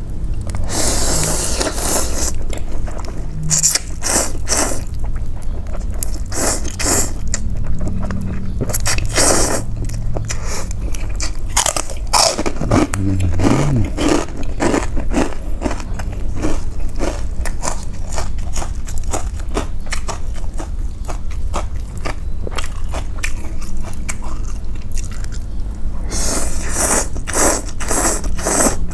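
A person eating noodle soup close to the microphone: slurping noodles and broth in several long bursts, chewing, and short clicks and scrapes from utensils against the bowl.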